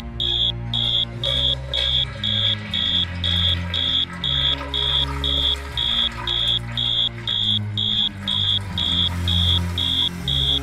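Fire alarm sounding: a loud, high-pitched beep repeating about three times a second, over low sustained tones that shift every second or two.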